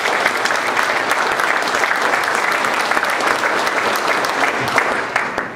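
Audience applauding: a steady round of many hands clapping that fades out at the end.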